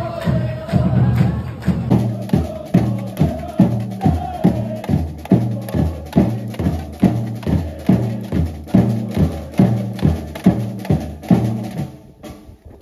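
Football supporters' drum section playing a steady beat on surdo bass drums with cymbal strokes, about two beats a second, with fans singing a chant over the first few seconds. The drumming fades out near the end.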